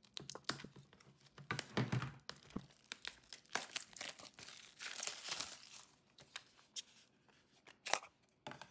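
Clear plastic shrink-wrap on a small product box being slit with a pocket knife and peeled off: crinkling and tearing plastic with many small crackles, loudest about halfway through.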